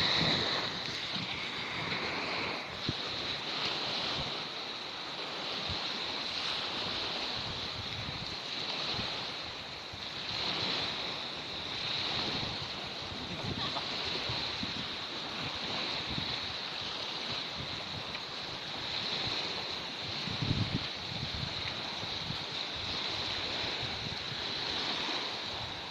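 Sea waves washing on a sandy beach in a steady hiss, with wind gusting on the microphone.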